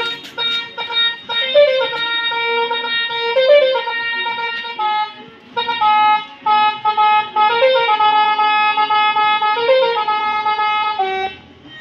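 Multi-tone telolet horn on a bicycle playing its melody: sustained horn notes stepping from pitch to pitch in a tune, with a short break about five seconds in.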